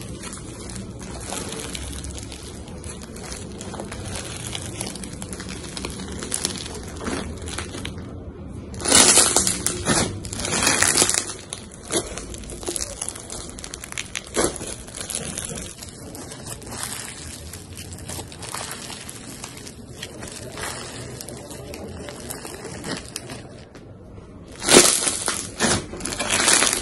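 Crunchy bead-filled slime being stretched, squeezed and pressed by hand, crackling and popping steadily. There are louder bursts of crunching about nine seconds in and again near the end.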